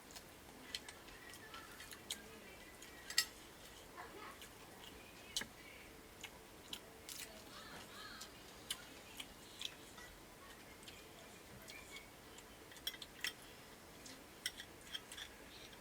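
Eating sounds of a rice-and-curry meal eaten by hand: irregular soft clicks and smacks of chewing and of fingers working the food, a few every second or two.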